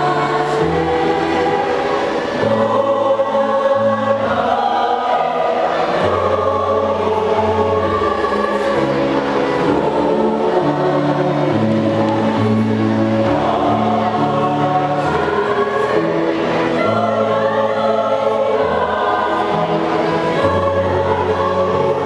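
School choir singing in harmony, moving through long held chords.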